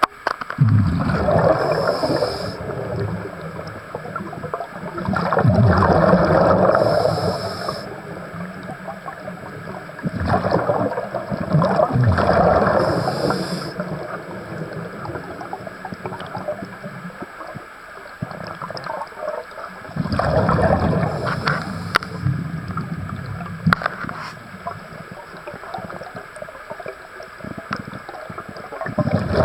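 Scuba diver breathing through a regulator underwater: exhaled bubbles rush and gurgle past the camera in bursts about every five seconds, with a longer pause in the middle.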